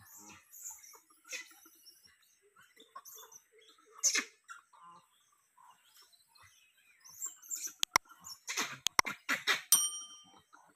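Gray langurs scuffling in dry leaf litter, with intermittent short squeaks and calls and a louder burst about four seconds in. Near the end come several sharp clicks and a short ringing ding.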